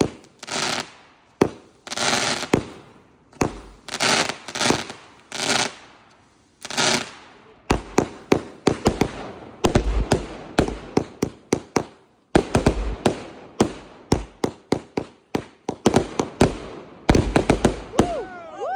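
Aerial fireworks firing shot after shot. For the first seven seconds or so come crackling bursts about once a second. After that a rapid string of sharp bangs follows, several a second, with a short pause near twelve seconds.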